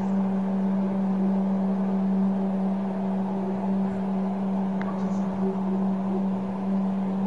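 A steady low hum held on one pitch, with fainter higher tones above it and no change in level: an unidentified drone from the night sky, the kind reported as a hum like a motor or a trumpet.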